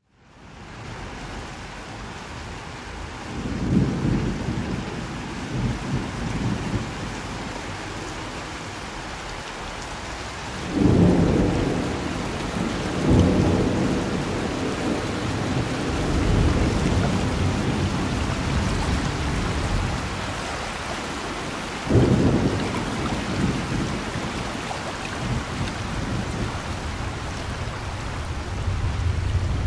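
Steady rain fading in, with several low rolls of thunder breaking through it, the sharpest about a third of the way in and again about three quarters of the way in.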